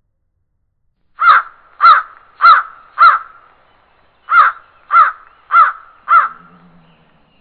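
A crow cawing loudly: two runs of four caws about half a second apart, with a short pause between the runs.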